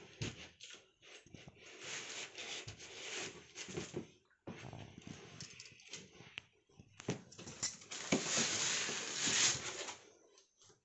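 Packaging being handled during a TV unboxing: irregular rustling and scraping of packing material with scattered clicks and knocks, loudest in a long stretch of rustling near the end.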